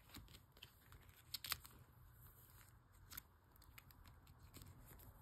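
Faint handling of photocards in plastic sleeves: soft rustles and small clicks, the sharpest a little under a second and a half in and another at about three seconds.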